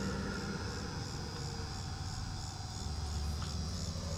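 Insects chirping in a steady, even rhythm of about two and a half chirps a second, over a low steady rumble.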